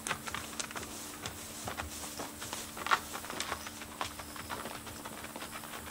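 Two saddled horses walking on gravel, their hooves giving irregular sharp steps about twice a second, one louder near the middle. A faint steady hum runs underneath.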